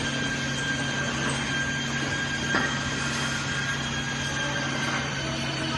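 Hydraulic power unit of a 50-ton cold press running: a steady motor-and-pump hum with a constant high whine over it. A single light knock comes about halfway through.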